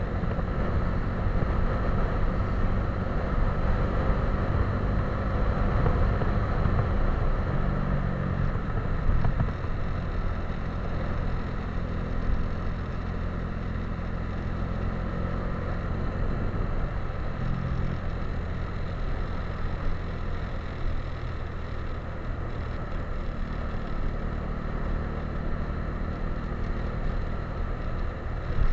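Motorcycle engine running steadily while riding at road speed, mixed with a steady rumble of wind and road noise.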